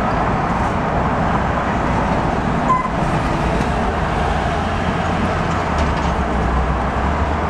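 Steady city street traffic with heavy vehicles passing close: a large bus and then a box truck drive by with a low engine rumble over the general traffic noise. A brief high beep sounds a little under three seconds in.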